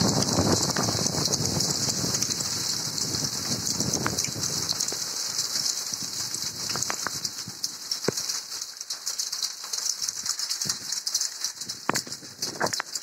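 Rain falling, heavy at first and thinning out after about five seconds, leaving scattered drops and sharp taps.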